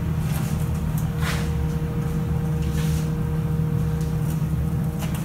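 Rat rod pickup's engine idling steadily with a low, even hum. A few light clicks or knocks come about a second in, around three seconds, and near the end.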